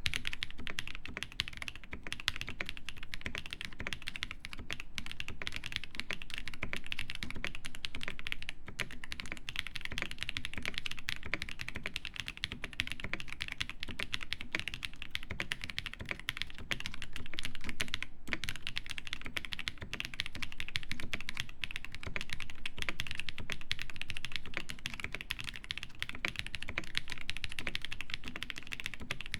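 Continuous fast typing on a Zoom TKL mechanical keyboard with lubed MM switches, a carbon fibre plate and GMK keycaps: a dense run of keystroke clacks with a few brief pauses. The typing starts right at the beginning.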